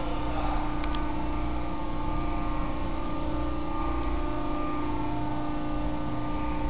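Steady hum of a ship's machinery, with several held tones over a low rumble and one brief click about a second in.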